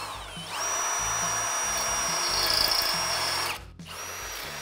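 Electric drill boring into a steel lower ball joint rivet with an 8 mm bit. The motor whine rises as it spins up, runs steadily for about three seconds, stops, then starts again near the end.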